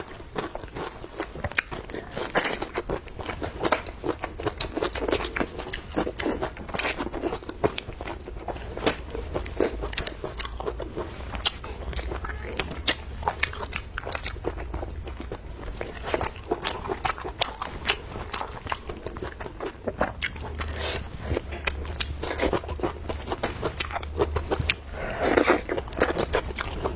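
Close-miked eating: a person biting and chewing food with crunching, with dense, irregular wet clicks and smacks from the mouth throughout.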